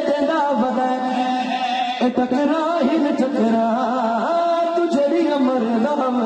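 A man singing verse in a slow, melodic recitation style into a microphone, his voice drawn out on long held notes that waver and bend in pitch.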